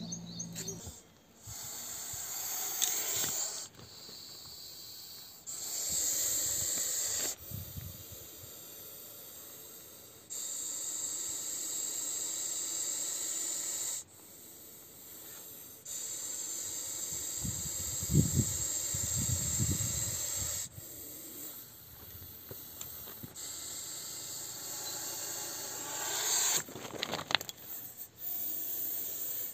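Russell's viper hissing loudly over and over, long hisses of one to four seconds each with quieter hissing between them: the defensive hiss of a handled viper. A few low thumps come about two-thirds of the way through.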